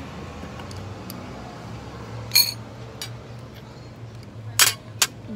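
Metal cutlery clinking on ceramic plates while eating: one ringing clink about two and a half seconds in, then two sharper clinks near the end.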